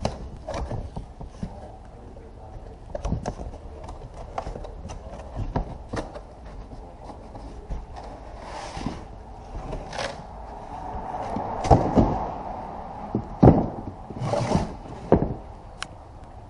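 Cardboard box being opened and handled by hand: taped flaps pulled apart, cardboard rustling and scraping, with scattered knocks. Past the middle come a couple of louder thumps as the new aluminium radiator is lifted out and set down on the cardboard.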